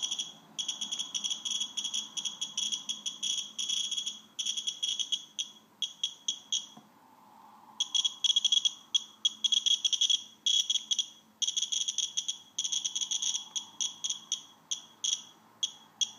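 Radex Geiger counter beeping rapidly, one short high chirp per detected count, in dense irregular runs with a pause of about a second near the middle. The fast count rate comes from radiation off a 1940s-style watch's hands, which the owner takes to be painted with radium lume.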